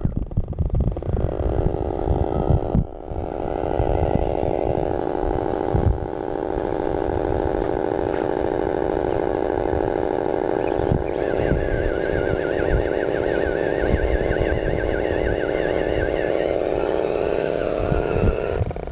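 Electric motor and gearbox of an Axial Jeep JK RC scale crawler whining under load as it climbs loose gravel. The whine is steady, breaks off briefly about three and six seconds in, and gains a higher wavering tone from about eleven seconds on, with irregular low knocks underneath.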